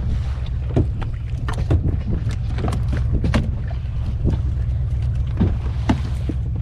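Small fishing boat's engine running steadily, with scattered sharp knocks as a hooked queenfish is hauled in on a handline.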